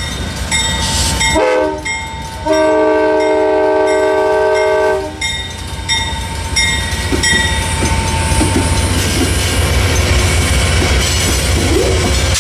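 Amtrak GE P42DC Genesis diesel locomotives passing close at a grade crossing. The multi-note horn gives a short blast about a second and a half in, then a long blast of about two and a half seconds, the close of the grade-crossing signal. After it comes the rumble of the diesels and the clacking of wheels over the crossing, with the crossing bell ringing steadily.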